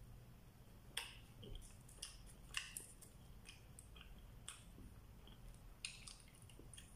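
A person eating with the fingers: faint chewing and mouth sounds, with a scattering of short, sharp little clicks and crackles about a second apart as bread is torn by hand over a foil wrapping.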